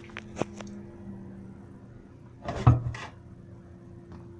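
Handling noises: a few light clicks, then a louder knock about two and a half seconds in, over a faint steady hum.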